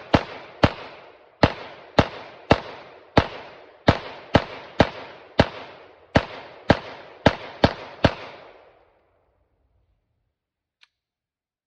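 Glock 19X 9mm pistol firing 115-grain CCI Blazer rounds: about fifteen shots in steady succession, roughly one every half to three-quarters of a second, each followed by an echo. The shots stop about eight seconds in. This is a live-fire function test after the feed ramp was polished.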